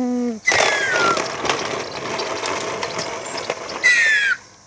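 A plastic toy plane set down and pushed along a concrete path, rattling and clicking as it scrapes. A short hummed engine note opens, and descending whistle-like glides come at the start of the rattle and again near the end.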